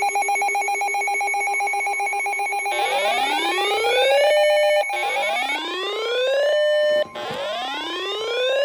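Electronic alert alarm: a loud, buzzing steady tone, overlaid from about three seconds in by rising 'whoop' sweeps that repeat about every two seconds, each ending in a brief held tone, sounding for a severe weather warning.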